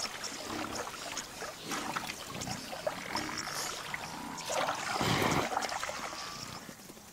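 Cape buffalo drinking and moving through a muddy lagoon: water and mud sloshing and dribbling, louder about five seconds in.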